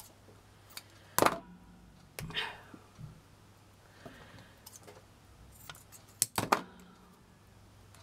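Small jewellery parts, a metal necklace clasp and pearls, clicking and clinking as fingers work them: a few sharp clicks, the sharpest about a second in and two close together near the end. A faint low hum runs underneath.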